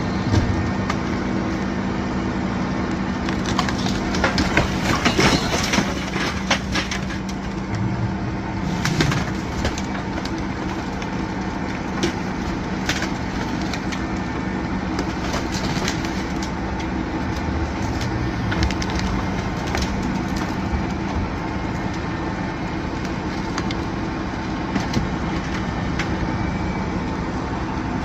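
A heavy engine runs steadily, with scattered sharp cracks and crunches of breaking wood, most in a cluster about four to six seconds in.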